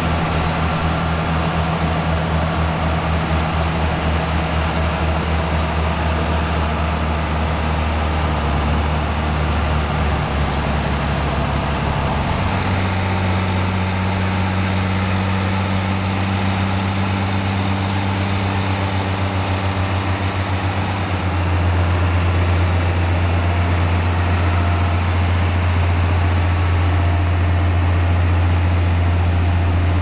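John Deere 55-series tractors' six-cylinder diesel engines pulling multi-furrow ploughs under load: a steady drone that shifts to a different pitch about 12 seconds in and again about 21 seconds in, louder after the second change.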